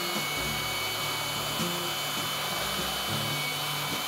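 Vertical bandsaw running steadily with a high whine as its blade cuts a small piece of mild steel, under background music with a changing bass line.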